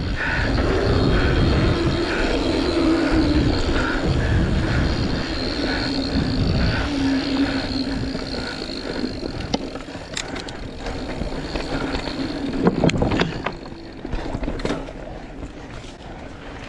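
A mountain bike being ridden along a dirt trail, heard from a camera on the rider: wind rushing over the microphone, with tyre and frame rumble and rattle. A louder clatter comes near the end.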